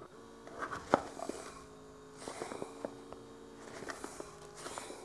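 A foot massager's small electric air pump runs with a low hum, inflating the fabric air bellow while it is squeezed by hand, with light rustling and crinkling of the fabric. The pump keeps running even under a hard squeeze, which the owner takes to mean it runs on a timer rather than sensing pressure.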